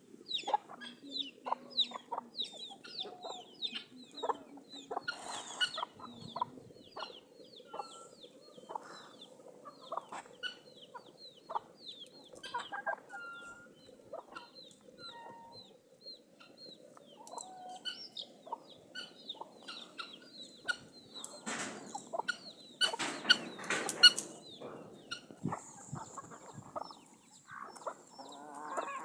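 A flock of domestic chickens clucking and peeping, with many short high calls all through and a louder scuffling burst a little over twenty seconds in.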